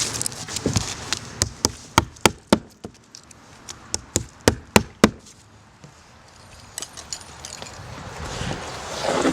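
About a dozen sharp hammer strikes in two quick runs, nails being driven through base felt paper into the wooden roof deck, with rustling movement around them.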